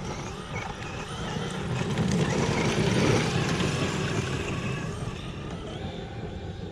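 Electric RC car driving on dirt, its motor whine and tyre noise swelling to a peak about two to three seconds in, then fading.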